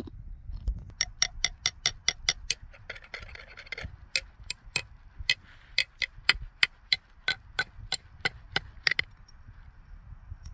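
Thin clear ice being tapped repeatedly, giving sharp glassy ticks with a bright ring, about four a second. A short scraping patch comes about three seconds in, and the ticking stops about nine seconds in.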